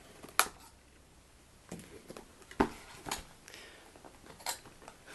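Cardboard smartphone box being opened by hand: the outer sleeve is slid off the inner box. There are a handful of sharp clicks and taps of card, the sharpest about half a second in, with faint rubbing and scraping between them.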